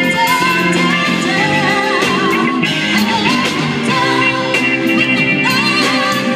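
A band playing, with a singer's voice gliding and wavering over guitar and steady instrumental backing.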